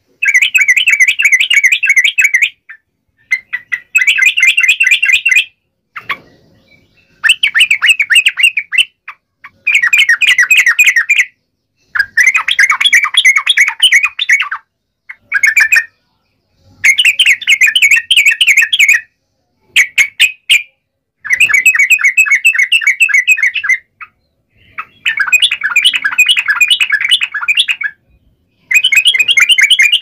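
Yellow-vented bulbuls (trucukan) singing loudly in fast chattering phrases of one to three seconds, about a dozen in a row with short pauses between them, in the excited back-and-forth style that bird-keepers call fighting song.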